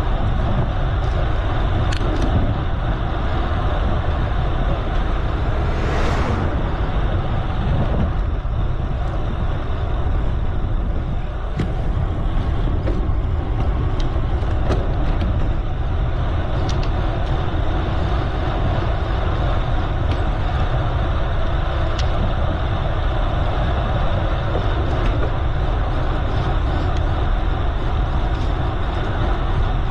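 Steady wind rumble on the microphone and tyre noise of a bicycle riding along a road, with scattered small clicks and knocks. There is a brief whoosh about six seconds in.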